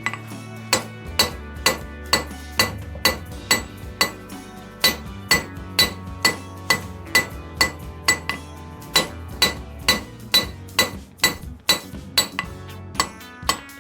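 Blacksmith's hand hammer striking hot steel flat bar on an anvil in a steady rhythm of a little over two blows a second, each blow ringing brightly, as the bar is drawn out.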